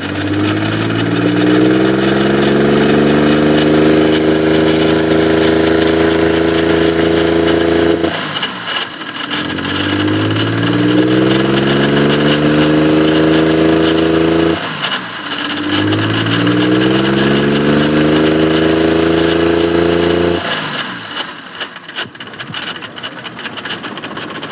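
Maruti 800 engine revved up three times, each time rising in pitch, holding high for several seconds, then dropping away abruptly; the engine is misfiring.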